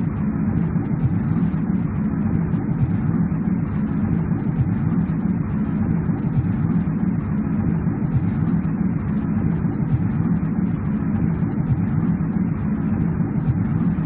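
Steady low rumbling noise of a winter-forest ambience track, even throughout, with no distinct events.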